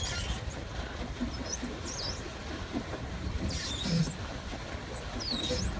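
Pedal boat's pedal mechanism squeaking as it is pedalled: short high squeaks recurring every second or two, over a low steady rumble.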